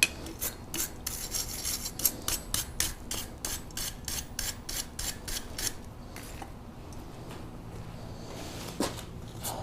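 Small ball peen hammer tapping quickly on a hot steel leaf resting on a wood stump, about four light strikes a second, texturing the leaf's surface. The tapping stops about six seconds in, with two single taps near the end.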